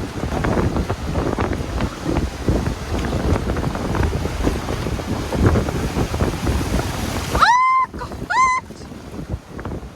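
Gusty sea wind buffeting the microphone over waves on a shingle shore. Near the end come two short rising cries, and after them the wind noise eases.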